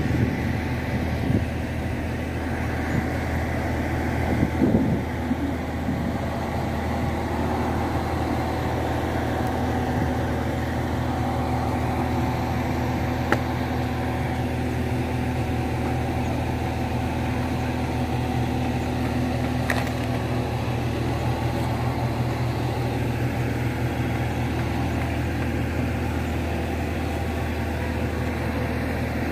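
Mobile crane's engine running steadily while it hoists a large timber joglo frame, with a couple of brief clicks partway through.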